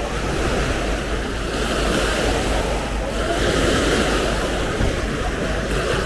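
Small waves breaking and washing up a sandy beach in a steady wash, with wind rumbling on the microphone.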